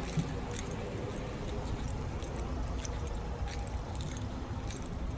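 Light metallic jingling, like keys or a chain: scattered small clinks at irregular intervals over a steady low rumble.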